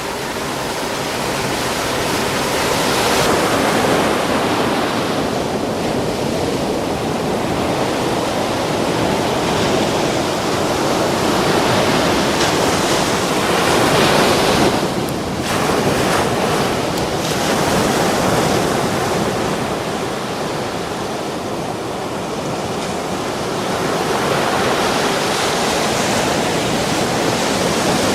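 Sea surf: waves breaking and washing in, a continuous rush that swells and eases, with a brief lull about fifteen seconds in.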